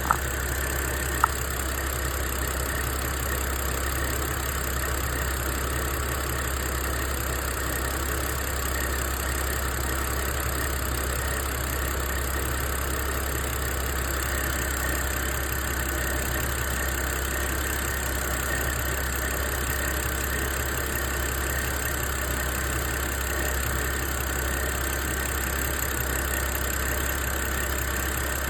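BMW E82 125i's N52 straight-six engine idling steadily, with a noise that the owner cannot place between the accessory belt and the valve lifters. One short sharp click about a second in.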